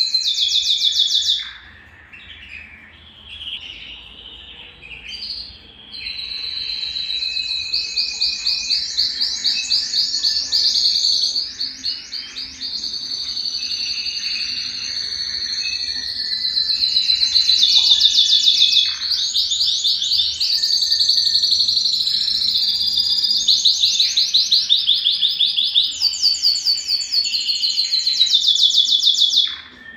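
Belgian canary singing: long phrases of fast trills and rolling notes. The song is softer for a few seconds near the start, then runs almost unbroken and loud until just before the end.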